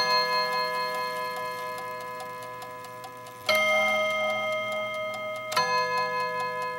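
Chime rods of a New Haven tambour mantel clock struck by its hammers: three strokes a few seconds apart, alternating between two pitches, each ringing on and slowly dying away. The movement ticks steadily beneath them.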